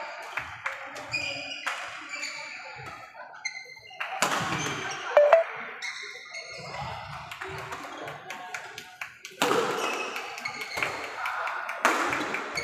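Badminton doubles play in a large hall: racket strikes on the shuttlecock as sharp cracks, and sports shoes squeaking on the wooden court floor. The sharpest hits come about five seconds in and again near the end.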